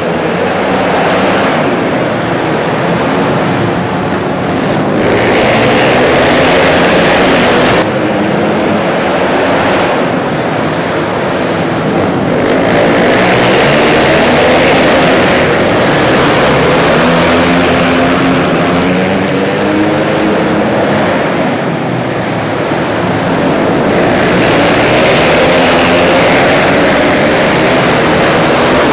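A pack of flat track racing motorcycles running hard around a dirt oval, their engines revving up and down through the turns. The sound swells and fades several times as the bikes come past and move away.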